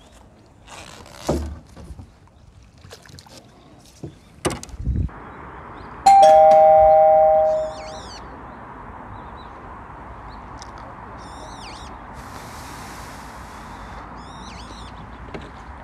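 A two-note ding-dong chime, a higher note then a lower one, about six seconds in, ringing for about a second and a half. A few knocks come before it, and brief high chirps sound several times after it over a steady hiss.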